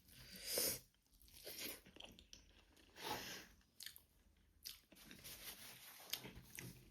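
A person chewing and crunching food close to the microphone, with a few louder crunchy bites spread out between softer chewing.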